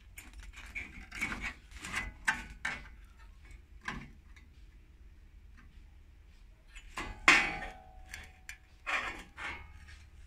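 A rusted piece of sheet steel scraping and rattling in irregular bursts as it is handled and bent against other sheet metal. The loudest scrape comes about seven seconds in, with a short metallic ring.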